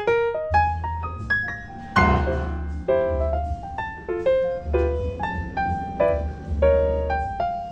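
Background piano music: a quick melody of struck notes over repeated low bass notes.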